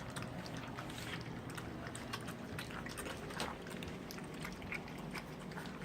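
Four-week-old puppies lapping and smacking at soft weaning food: a busy, irregular patter of small wet clicks and slurps.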